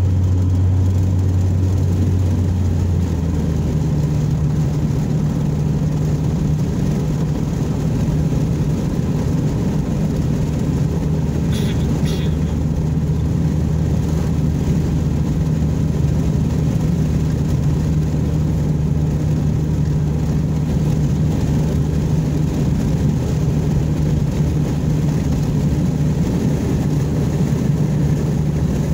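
Engine and road noise inside a moving car's cabin, a steady low drone. Its pitch steps up about three seconds in and then holds steady.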